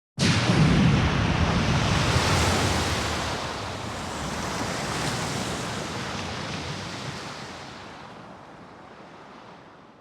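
A single dramatic sound effect: a sudden rush of noise with a deep rumble at first, slowly fading away over about ten seconds.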